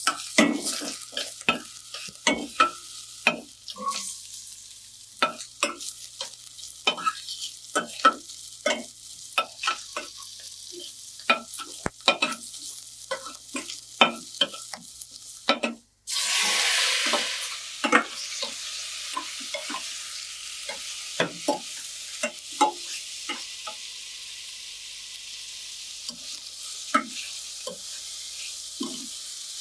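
Garlic, onion and ginger sizzling in hot oil in a stainless steel pot, stirred with a metal spoon that clicks and scrapes against the pot many times. Just past halfway the sound breaks off briefly, then the sizzling surges louder for a couple of seconds before settling back.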